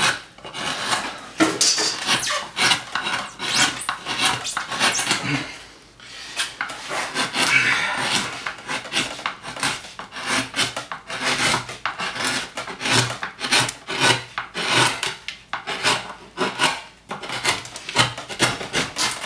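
Hand carving gouge cutting a wooden woodcut relief block: rapid, repeated short scraping strokes, several a second, as chips are dug out of the background, with a brief pause about six seconds in.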